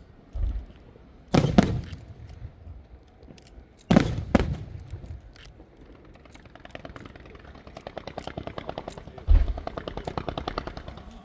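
Aerial fireworks going off: loud sharp booms about a second and a half in and twice about four seconds in, low thumps near the start and near the end, and from about halfway a fast, even run of crackling pops that builds.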